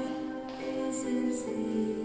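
A woman singing into a microphone in long held notes, with instrumental accompaniment.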